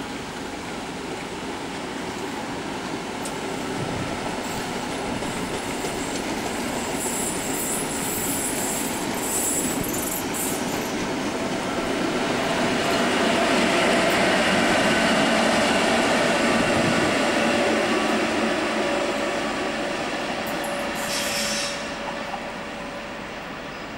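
Locomotive-hauled passenger train passing at low speed, wheels rumbling and squealing on the rails. It builds to its loudest about halfway through as the rear locomotive goes by, then fades as the train moves away.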